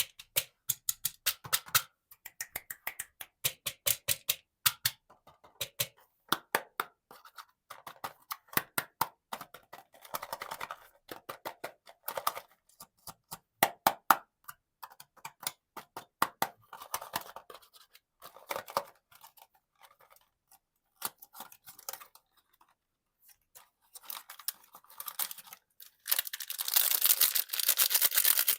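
Plastic candy packaging being handled and opened by hand: a long run of sharp crinkles and clicks with scratchy rustling, turning into a dense stretch of rustling near the end.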